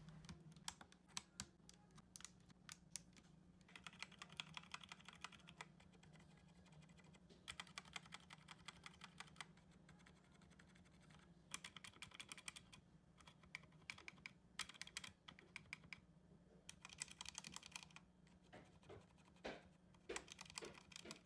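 Typing on a mechanical keyboard: faint, soft key clicks in several short bursts of rapid keystrokes, with pauses between them.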